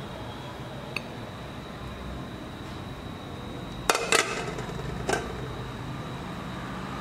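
A few sharp clinks of metal kitchenware, likely the pizza pan or a utensil, while tomato slices go on the pizza: a quick cluster of clinks about four seconds in and one more a second later, after a faint click near the start.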